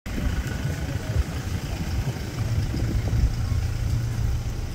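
Low rumble of a motor vehicle engine running, settling into a steady hum about halfway through.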